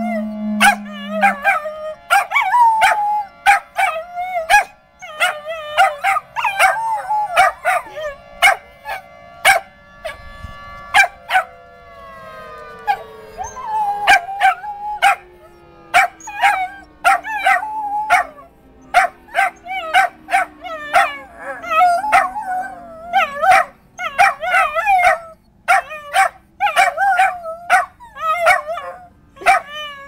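A dog howling, yipping and barking along with an outdoor tornado warning siren. The siren holds a steady tone, then winds down in a long falling glide from about 11 seconds in, while the dog's calls carry on over it.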